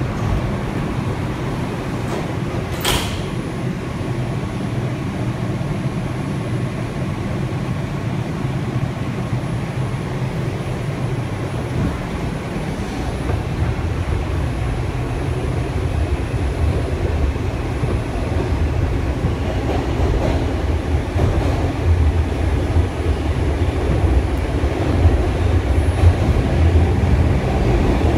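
R142 subway car doors close with one sharp knock about three seconds in. The train then pulls out and runs through the tunnel, its low rumble growing louder over the second half.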